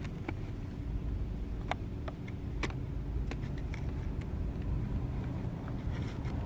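Steady low rumble of outdoor background noise with scattered sharp clicks and taps from a knife and metal parts being worked at, as an electric motor is freed from scrap.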